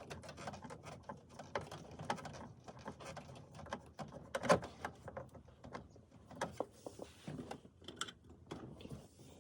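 Scattered faint clicks and light knocks, with one louder knock about four and a half seconds in.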